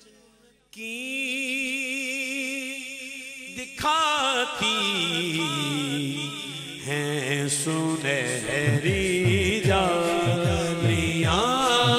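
Male naat reciter singing with heavy vibrato, opening after a brief quiet moment with one long held note. About four seconds in a chanted chorus backing joins him, and from about eight seconds it carries a steady rhythmic pulse under his voice.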